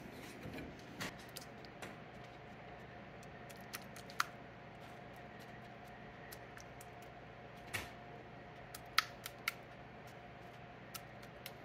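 Faint, scattered light clicks and taps from a silicone pastry brush dabbing hot orange marmalade glaze between a skillet and metal fruitcake tins on an oven rack, over a low steady hum.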